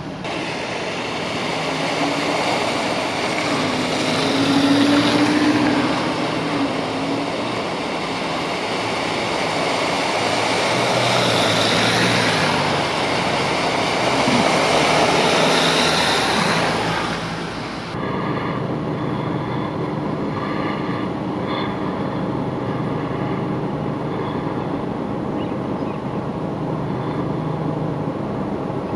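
Cars driving through floodwater, their tyres throwing up water with a rushing splash that swells twice as vehicles pass. About two-thirds of the way through it cuts to a steadier, quieter running of vehicle engines and water as traffic moves slowly through the flooded street.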